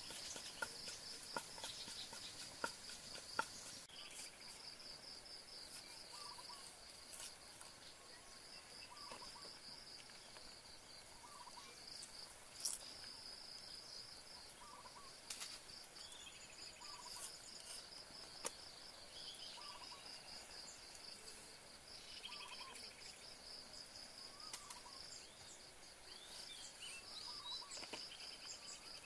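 Woodland ambience: insects trilling steadily in a fast pulsing high buzz, with a short animal call repeating every second or two and a few sharp knocks and taps.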